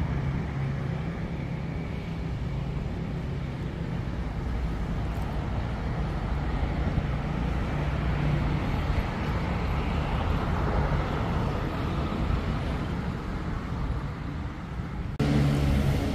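Steady low engine rumble with road traffic noise, swelling and fading about ten seconds in as traffic passes. Near the end it cuts abruptly to a louder, steadier low engine hum.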